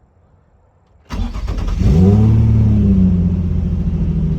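Nissan 350Z's 3.5-litre V6 cranking briefly on a new OEM starter about a second in, catching, flaring up in revs and settling into a steady idle. The engine starts, so the new starter has cured the no-crank, no-start fault.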